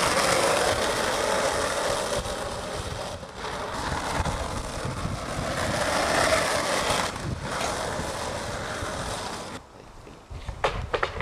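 Skateboard wheels rolling over asphalt in a steady rushing rumble, breaking off briefly twice and fading out. Near the end come a few sharp knocks.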